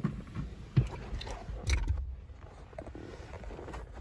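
Low rumbling handling noise with a few knocks and clicks, the loudest about a second in.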